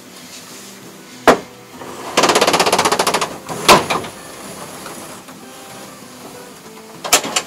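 Camera shutter clicks: a single click, then a rapid burst of about a dozen shutter clicks a second lasting about a second, then more single clicks, over background music.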